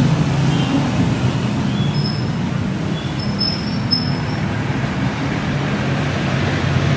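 Street traffic: the steady low drone of motorcycle and tricycle engines passing close by, with a few short high squeaks between about two and four seconds in.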